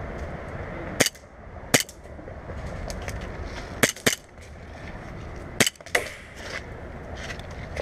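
Airsoft guns firing: about six sharp cracks, spread out, with some close together in quick pairs.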